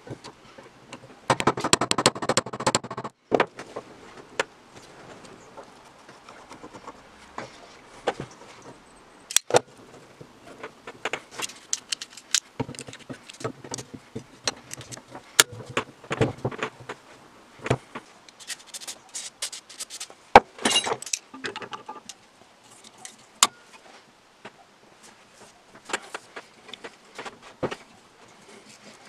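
Metal hand tools clicking and scraping on a rusty Millers Falls No. 118 breast drill as it is taken apart: a screwdriver on a screw by the chuck, then locking pliers and an adjustable wrench gripping the chuck. Sharp metal clicks are scattered throughout, with a stretch of scraping about a second in.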